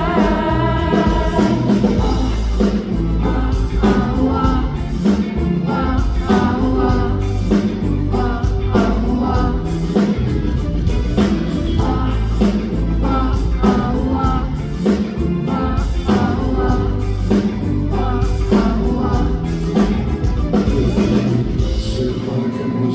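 Pop song playing: sung vocal melody over a steady beat and accompaniment.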